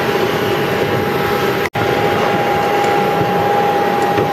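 Airliner cabin noise with the engines running: a steady rush with a constant whine. The sound cuts out abruptly for an instant about halfway through.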